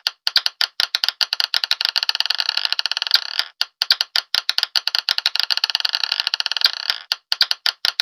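Marbles clattering against one another in a fast, dense run of sharp clicks, with brief pauses about three and a half and seven seconds in.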